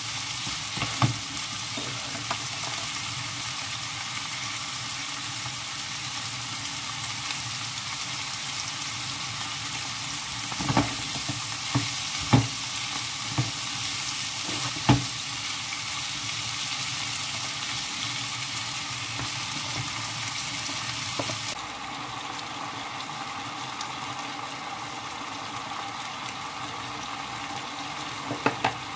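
Sliced bell peppers and onion sizzling in a frying pan as they are stirred with a wooden spatula. A few sharp knocks of the spatula against the pan come through the steady hiss. The hiss drops abruptly to a softer level a little over two-thirds of the way in.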